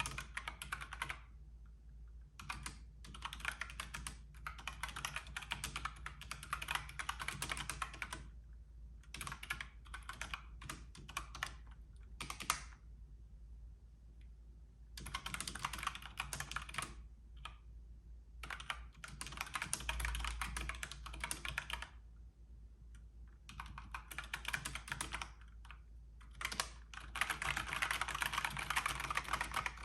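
Fast typing on a Logitech K845 mechanical keyboard with tactile brown switches, Corsair PBT double-shot keycaps and O-rings fitted to damp the keys. The keys come in quick runs broken by short pauses, with the busiest run near the end.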